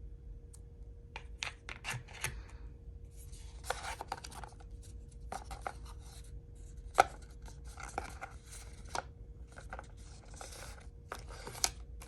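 Packaging and a phone being handled: irregular bursts of rustling, scraping and tearing with scattered sharp clicks and taps, the sharpest click about seven seconds in. A faint steady hum sits underneath.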